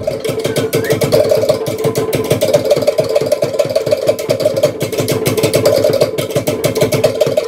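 Fast Tahitian drumming: a rapid, even, rolling beat on wooden to'ere slit drums, starting abruptly and keeping a steady driving pace throughout.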